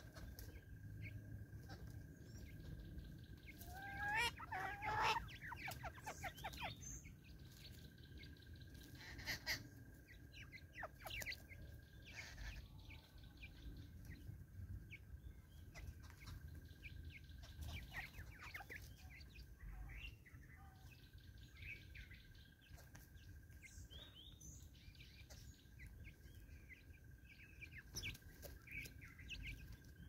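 Natal spurfowls feeding on the ground, with soft clucks, chirps and pecking clicks. About four seconds in comes a louder bird call of rising, quickly repeated notes, and a sharp call near nine and a half seconds. A steady high tone runs beneath and breaks off now and then.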